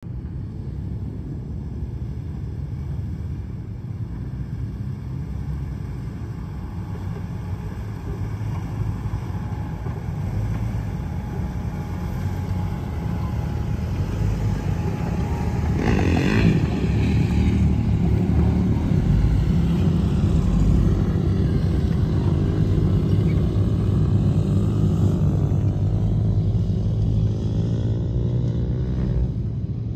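Lifted Jeep Cherokee XJ's engine running at low speed as the truck crawls over sand moguls, a low rumble that grows louder as it comes close. A brief sharper surge comes about halfway through.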